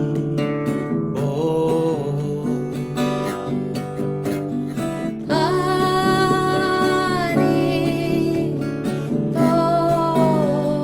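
Kirtan music: a steady low drone under a melody, with a long held note about halfway through and another near the end.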